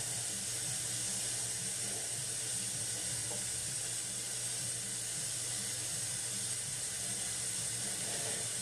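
Steady hissing background noise with a faint low hum underneath, unchanging throughout.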